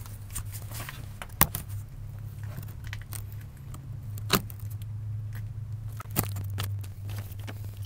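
Handling noise as the camera is moved and set down low in the truck's cab: three sharp knocks about a second and a half, four seconds and six seconds in, with light rattling between them, over a steady low hum.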